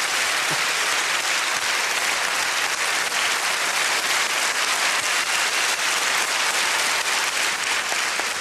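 Large theatre audience applauding, a steady dense clapping.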